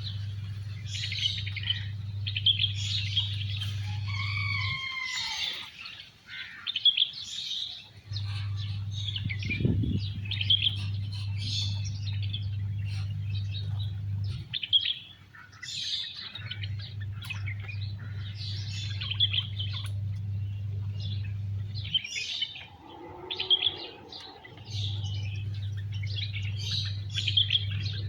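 Many small wild birds chirping and tweeting in quick, overlapping calls at a feeding spot. A low steady hum runs underneath and cuts in and out several times, in stretches of a few seconds each.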